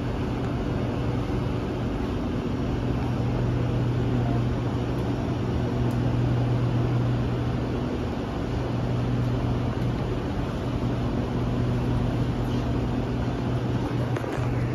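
Steady low hum of a Kawasaki & Nippon Sharyo C751B metro train standing at the platform with its doors open, its onboard equipment running.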